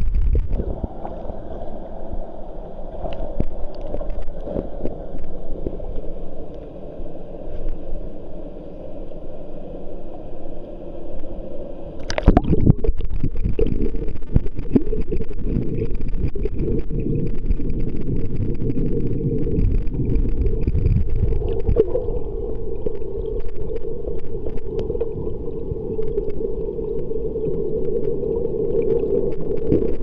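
Muffled rushing and churning water heard underwater, from a waterfall plunging into its pool. It is a deep, steady rumble that gets louder about twelve seconds in.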